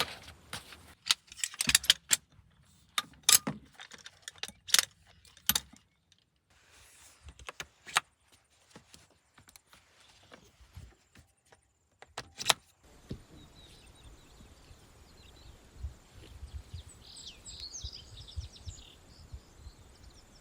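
Clinks and clatters of small hard objects being handled, thickest in the first six seconds with a few more later. Near the end, faint bird chirps over a low rumble.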